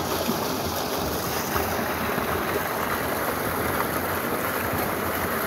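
Thick jet of water from a 15 HP submersible pump's outlet pipe pouring into a concrete tank, a steady rushing splash.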